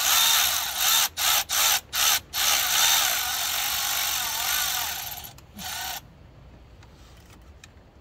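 Cordless power tool running in four short trigger bursts, then a run of about three seconds and a last short burst, stopping about six seconds in, as it spins out a small bracket bolt.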